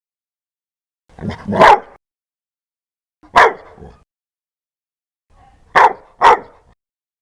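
A dog barking loudly in separate spells with silence between: a bark about a second in, another in the middle, then two quick barks near the end.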